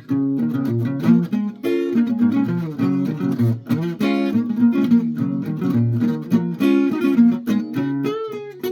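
Acoustic guitar played solo: a busy line of plucked notes and chords, several notes a second.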